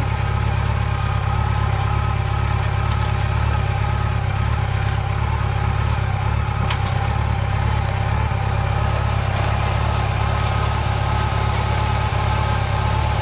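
Yamaha FJR1300 sport-touring motorcycle's inline-four engine idling steadily.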